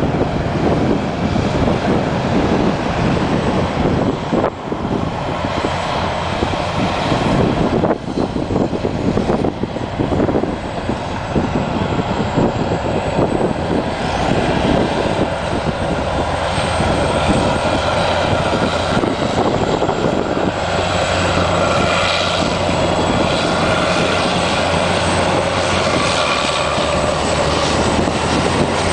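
Heavy diesel engines of earthmoving machines running under load. A crawler dozer works first, then a Cat Challenger track tractor pulling a train of scrapers comes close. Its engine drone is loud and steady through the second half.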